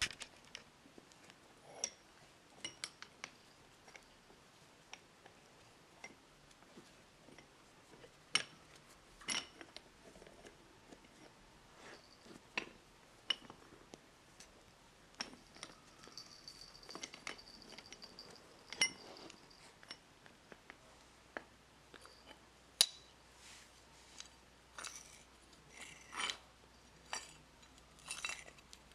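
Metal bench vise parts being handled: scattered light clinks and knocks of metal on metal, with a high steady ringing tone for about two seconds near the middle.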